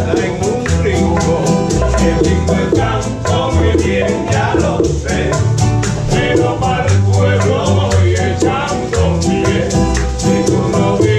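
Background music: an upbeat song with a singing voice over a steady shaker-like beat and a bass line.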